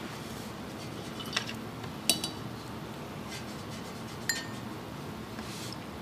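Paintbrushes knocking on hard painting gear (enamel palette tray, water jar): three short, light clinks about one and a half, two and four seconds in, over a quiet steady room background.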